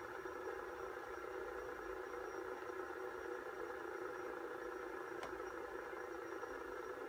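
Disc-shaped fidget spinner spinning flat on a wooden tabletop: a steady soft whir, with one faint click about five seconds in.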